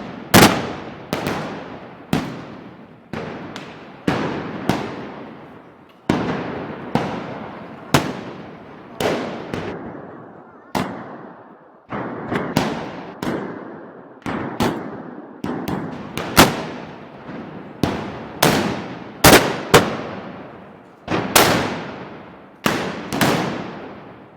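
A rapid, irregular string of loud gunpowder bangs, roughly one or two a second, each one echoing and dying away before the next.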